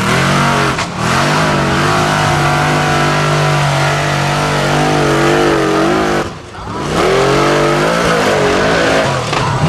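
Formula Offroad buggy's engine held at high revs under full throttle as the buggy climbs a steep dirt hill with its wheels spinning; the revs dip briefly twice, about a second in and past the middle, then pick up again.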